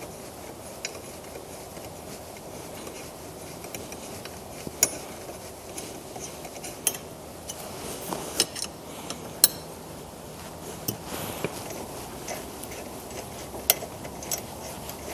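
Sharp metallic clinks and taps, scattered irregularly: a hex key and bolts knocking against the metal rear rack being fitted to a motorcycle, over a steady background hiss.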